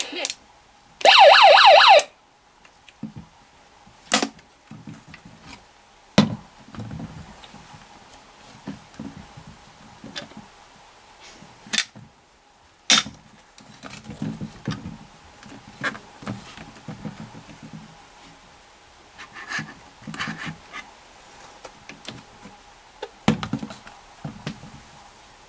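Ito En Ocha-ken watchdog radio's built-in electronic siren, switched on by its siren button, wailing with a wavering pitch for about a second, starting about a second in. After it come scattered clicks, knocks and rustles of the plastic toy being handled.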